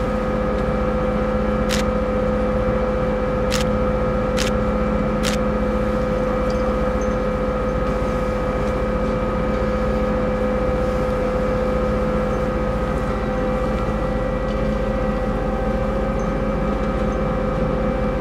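MV Queen of Cumberland's engines and shipboard machinery running steadily, a constant drone with a few held humming notes. Four sharp clicks come in the first five seconds or so.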